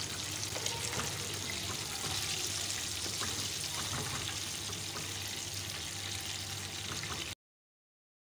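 Hot oil sizzling and crackling around flour-coated chicken breast pieces deep-frying in a pan, the chicken fried through. The sizzle cuts off abruptly about seven seconds in.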